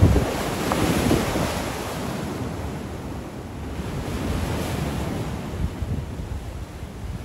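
Sea waves breaking over rocks and washing against concrete tetrapods: a loud surge right at the start, then the hiss of foaming surf that swells again midway. Wind buffets the microphone with uneven low rumbling.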